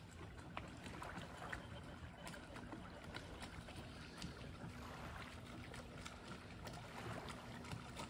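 Small waves lapping at a lake shore, with faint ticks and splashes throughout. A faint steady low hum joins about halfway through.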